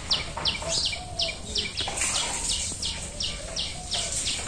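High, steady chirping: one short, slightly falling chirp about three times a second, evenly spaced, with a few fainter, lower wavering calls behind it.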